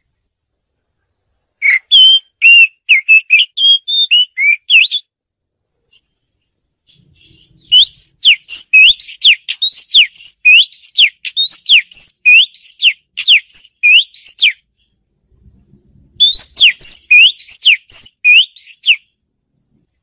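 Oriental magpie-robin singing: three bouts of rapid, clear whistled notes that slide up and down in pitch, the longest bout in the middle, with short silences between them.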